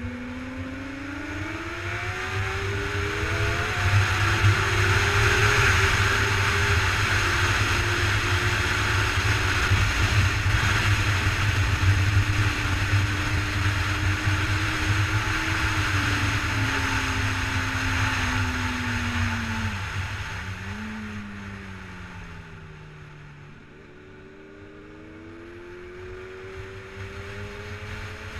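Onboard sound of a 2007 Honda CBR1000RR Fireblade's inline-four engine at full track pace, with a loud wind rush on the microphone. The revs climb through upshifts in the first few seconds and hold high down a straight. About two-thirds of the way through they fall, with a downshift, as the bike slows for a bend, then build again near the end.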